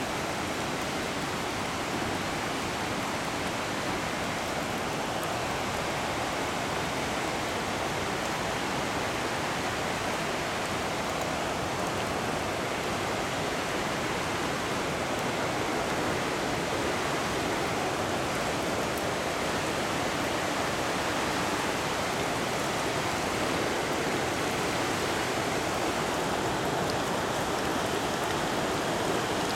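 Steady rushing of a flash-flooded creek, running wide and fast after heavy downpours, an even noise that grows slightly louder toward the end.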